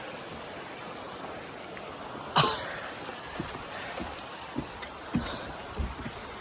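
A person coughs once, sharply. Several soft, low thumps follow over the next few seconds.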